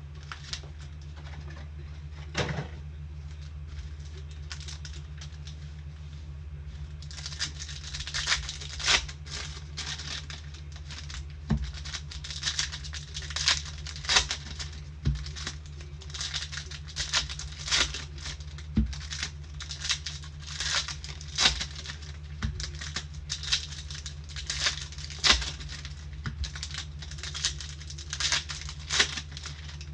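Trading card boxes and packs being opened and handled: wrapper crinkling and tearing with quick irregular clicks and snaps of cardboard and cards. This becomes busy about seven seconds in, over a steady low hum.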